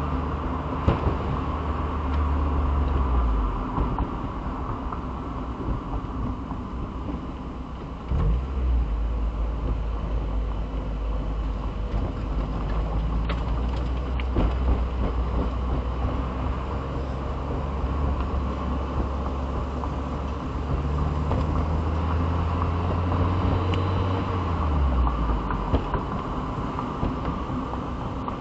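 Convertible driving with its top down at low town speed: engine hum with tyre and wind noise, the low engine note dropping and rising a few times as the car slows and speeds up.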